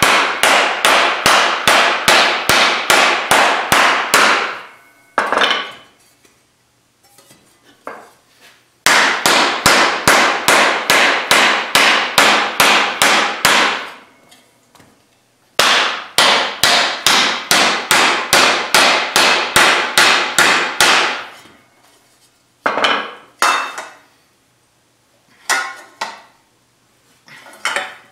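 Blue teardrop-headed mallet striking a 16-gauge cold-rolled steel sheet on a sandbag, in fast runs of about five blows a second, hammering the sheet into a rough fender shape. There are three runs of several seconds each with short pauses between, then a few separate knocks near the end.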